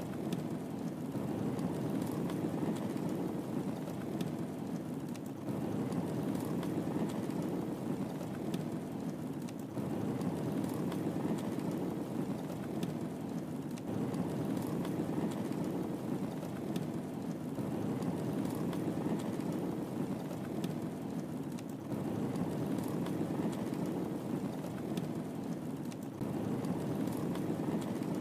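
Wood fire burning in a fireplace: a steady low rumble of the flames with light, scattered crackles and pops.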